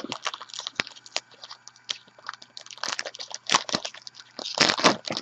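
Stiff trading cards being flipped through and handled, a dense irregular run of small clicks and flicks, with a few louder snaps about three and a half seconds in and again near the end.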